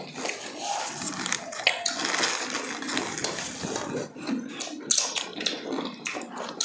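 Close-up crunching and chewing of crispy fried chicken, the breading crackling in many sharp little snaps, a few louder ones standing out, the loudest about five seconds in.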